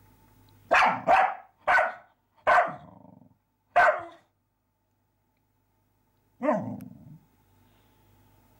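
A dog barking at a mouse: five sharp barks in the first four seconds, then one more about six and a half seconds in that falls away into a lower tail.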